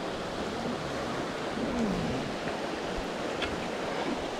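Shallow mountain stream running over rocks: a steady rush of water.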